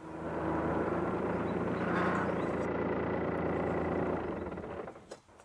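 Kubota B2261 compact tractor's diesel engine running steadily, fading out near the end.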